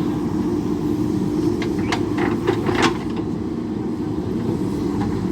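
JCB backhoe loader's diesel engine running steadily, with a quick run of short knocks about two to three seconds in.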